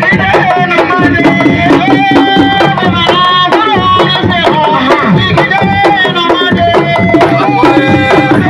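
Music: hand drums beating a fast, dense rhythm with a melody over it, the kind of drumming that accompanies Senegalese lamb wrestling.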